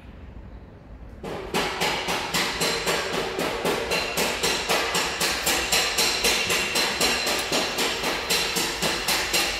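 Background music with a steady drum beat, coming in suddenly about a second in.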